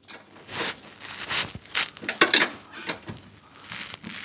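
Ratchet wrench worked in short, irregular strokes, its pawl clicking with each back-swing as the sway bar bush bracket's retaining nuts are tightened.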